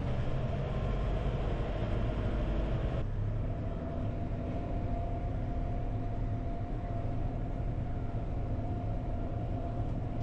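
Farm tractor engine running steadily under a constant low rumble with a held whine; a higher hiss drops away about three seconds in.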